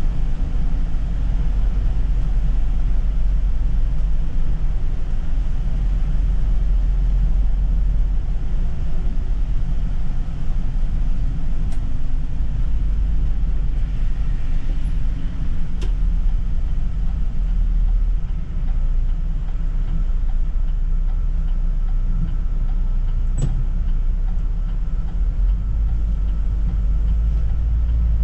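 City bus in motion, heard from inside: a steady low rumble of engine and road noise, with a few sharp ticks about 12, 16 and 23 seconds in.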